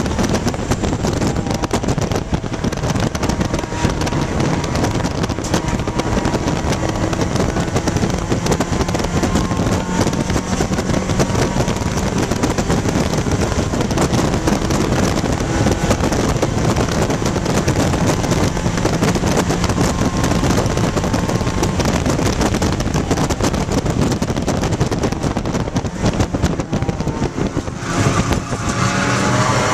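Dodge Neon ACR race car's four-cylinder engine running hard on track, heard from inside the cabin with heavy road and wind noise. Near the end the level dips briefly and the engine note climbs again.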